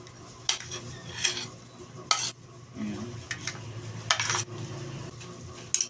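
A metal spoon scraping and clinking against a ceramic plate, scooping cubed cheese off it into a plastic container, as several separate short scrapes and clicks.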